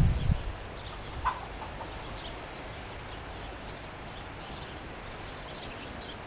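Wind buffeting the microphone, dying away in the first half second, then steady outdoor hiss with faint, short bird calls scattered through, the clearest about a second in.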